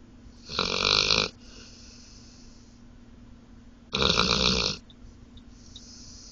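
Sleeping dog snoring: two loud snores about three and a half seconds apart, each followed by a softer hissing breath.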